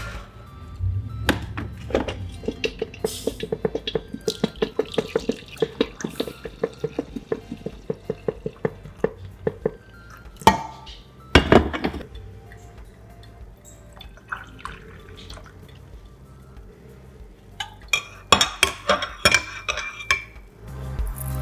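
Coffee poured from a glass drip-machine carafe into a ceramic mug, with a couple of knocks of glass and ceramic around the pour, then a metal spoon clinking against the inside of the mug as the coffee is stirred near the end.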